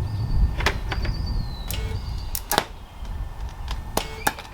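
Stick welder's arc crackling, with sharp irregular pops over a low rumble that fades after about three seconds, as a tack weld is struck on steel.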